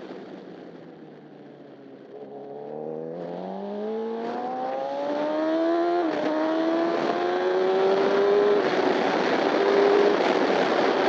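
Honda CBR1000RR inline-four superbike engine, heard onboard, pulling low revs for a couple of seconds and then accelerating hard, its pitch climbing with short dips as it shifts up. Wind rush grows louder as speed builds.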